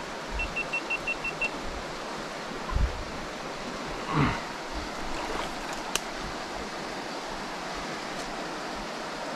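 Creek water running steadily over and under a log jam. Near the start there is a quick run of about seven short, high-pitched ticks, then a low thump about three seconds in and a sharp click about six seconds in.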